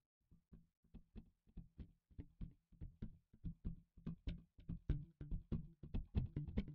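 Background music fading in: a quick, steady run of plucked guitar notes that grows louder.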